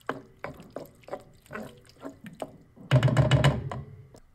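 Wooden spoon stirring a thick mix of diced tomatoes, tomato paste, onion and fennel in a metal stock pot: repeated wet, squelching strokes, two or three a second, then a louder clatter about three seconds in.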